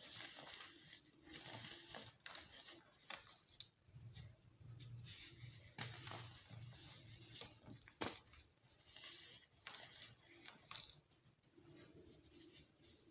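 Colourful compressed baking soda crumbling and crunching as it is crushed, a steady irregular crackle with a few sharper snaps.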